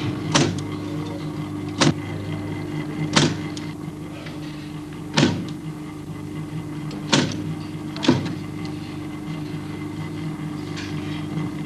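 Electric typewriter humming steadily while single keys are struck slowly with a hand-held typing stick: one sharp clack every second or two.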